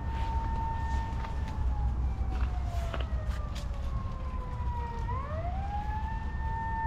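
A siren wailing: a steady tone that slowly sinks in pitch for a few seconds, then sweeps quickly back up about five seconds in and holds, over a low rumble.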